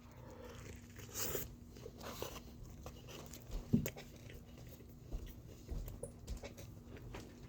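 A person chewing a bite of grilled chicken sandwich: faint, soft mouth sounds with a few scattered clicks.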